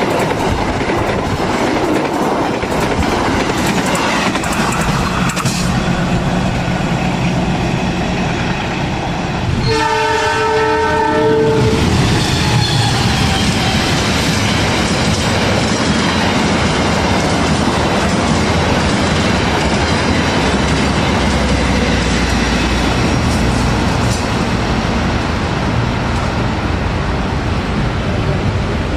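Indonesian passenger trains passing at speed, the wheels running on the rails in a steady, loud rumble. About ten seconds in, a locomotive horn sounds one blast of about two seconds.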